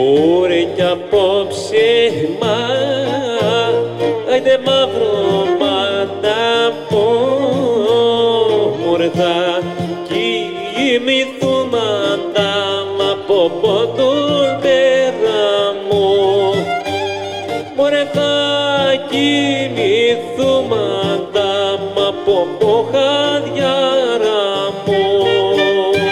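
Greek folk dance music from the Grevena region: an ornamented, winding lead melody over a steady repeating bass beat, played through loudspeakers for a circle dance.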